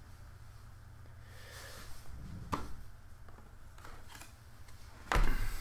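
Sealed cardboard trading-card boxes being handled and shifted on a table: soft rustling, a light knock about two and a half seconds in, and a louder thump near the end.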